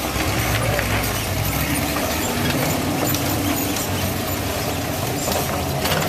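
Off-road race buggy's engine revving up and down as it crawls over boulders, with a few short knocks.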